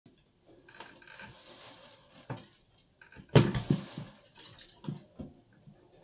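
A plastic bag taped under a ceiling pipe-type exhaust fan rustles and crackles as the fan is worked loose, while animal droppings patter down into it. The uploader suspects the droppings are a bat's. A few sharp knocks come through, the loudest about three and a half seconds in.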